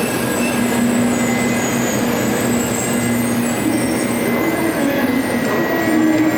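Shinkansen train running on the Tokaido line, a continuous rumble and hiss with a motor hum that steps up in pitch as it gathers speed.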